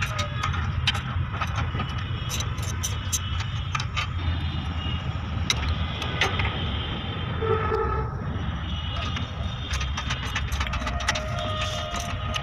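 Steady low rumble of an engine running, with scattered light clicks and taps of small metal parts being handled.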